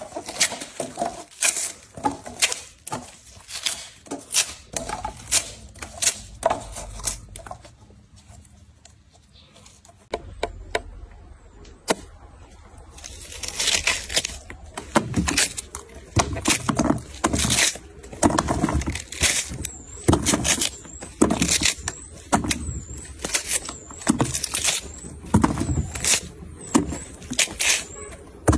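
Watermelon rind cracking and being torn off by hand: a rapid run of sharp cracks and tearing snaps, which drops back for a couple of seconds about a third of the way in.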